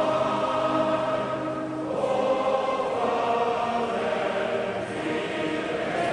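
A choir singing slowly in long held phrases, with a brief dip between phrases about two seconds in and again near the end.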